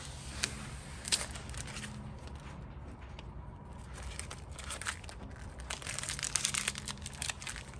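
Clear plastic transfer film peeled off a vinyl decal and crinkled in the hands: scattered crackles, two sharper snaps about half a second and a second in, and a denser run of crinkling about six seconds in.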